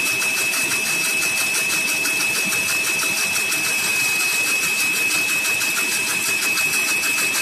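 Electric blender motor running steadily with a constant high whine as soybean oil is added a little at a time, emulsifying egg and oil into mayonnaise.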